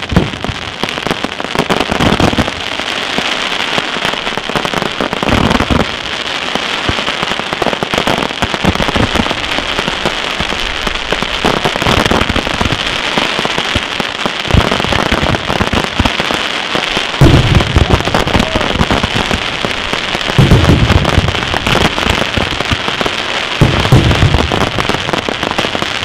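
Professional fireworks display: a dense, continuous crackling, like heavy rain, from gold glittering effects. Deep shell bursts boom several times, most heavily in the last third.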